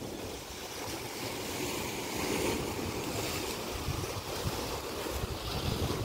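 Small sea waves washing and churning against the rocks at the foot of a cliff, a steady rush of surf. Wind buffets the microphone now and then with low rumbles, more often in the second half.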